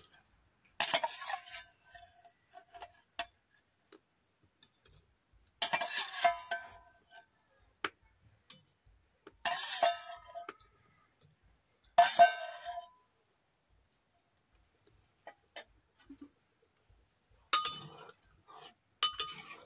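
A perforated metal ladle clatters against the rim of a metal cooking pot four times, each knock ringing briefly, as fried soya chunks are tipped into the yogurt gravy. Near the end a spoon stirring the pot clinks against its sides.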